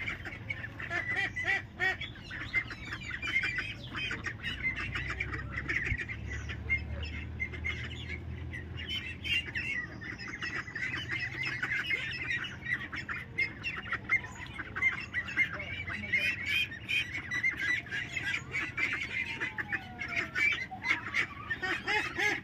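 A flock of young domestic ducks calling all together: a continuous chorus of many short, high-pitched calls and squawks.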